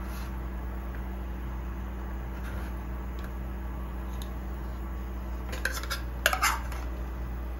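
A few light clinks of cutlery against dishes, bunched together about six seconds in, over a steady low hum.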